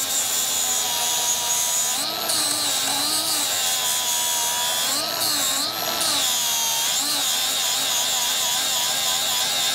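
Electric angle grinder grinding on a steel track frame, sending out sparks. It makes a steady motor whine whose pitch rises and falls back several times as the disc works the steel.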